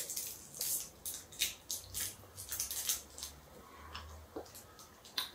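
Wet clicks and smacks of a mouth sucking on a Mega Warheads extreme-sour lemon hard candy, quick and close together at first and thinning out after about three seconds.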